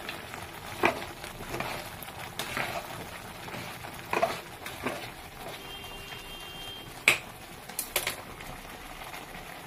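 Thick tomato sauce simmering in a black iron pan over a gas flame: a steady low hiss with a few sharp pops and clicks scattered through.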